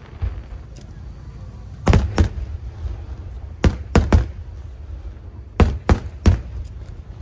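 Aerial firework shells bursting overhead: about eight sharp bangs in three quick clusters of two to three, over a low steady rumble.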